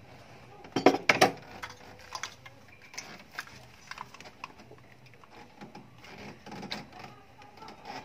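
Tools and the engine's wiring harness and plastic connectors being handled: two loud sharp clacks about a second in, then scattered light clicks and small knocks of metal and plastic.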